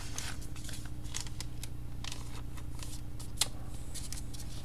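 Trading cards handled on a wooden tabletop: faint taps and ticks as a card is laid onto a stack, with one sharper click about three and a half seconds in. A steady low hum runs underneath.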